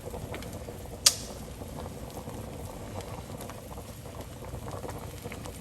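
Milk gravy on a butter-and-flour roux bubbling in a hot pan, with a single sharp click about a second in.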